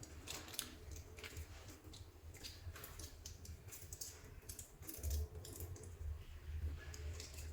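Soft play clay being squeezed and mixed by hand, making irregular sticky clicks and crackles, with a low rumble from handling that grows stronger about five seconds in.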